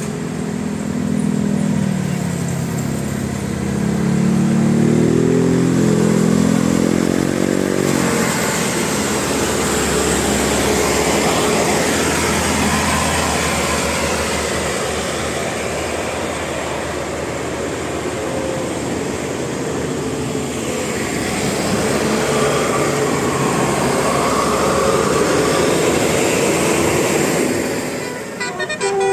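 Bus engine accelerating, its pitch climbing in steps for about the first eight seconds, then a loud, steady rush of road noise.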